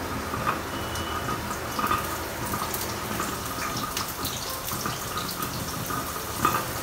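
Hot oil with cumin and mustard seeds sizzling steadily in a pan as chopped onions are dropped in, with scattered small crackles.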